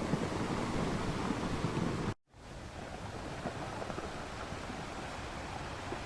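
Sea surf washing, a dense rushing noise that cuts off suddenly about two seconds in, followed after a brief silent gap by a quieter, steady rushing noise.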